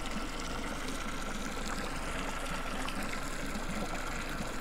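Lake water washing and lapping against a fishing boat's hull, a steady low wash, with a faint steady high whine underneath.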